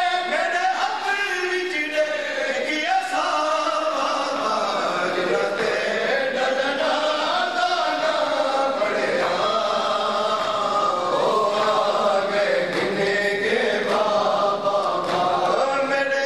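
Crowd of men chanting together, many voices overlapping in a steady, continuous chant.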